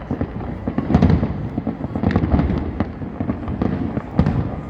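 Large fireworks display: overlapping shell bursts form a continuous low rumble, with many sharp bangs and crackles on top and louder bursts about one and two seconds in.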